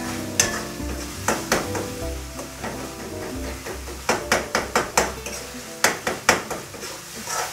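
Metal spatula scraping and clinking irregularly against a metal kadai as thick onion-tomato masala is stirred and fried, with sizzling, until it leaves the sides of the pan. Background music plays underneath.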